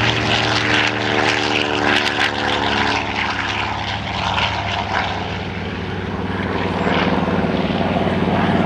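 Grumman TBM Avenger's Wright R-2600 twin-row radial engine and propeller at takeoff power, running steadily as the plane rolls past, lifts off and climbs away.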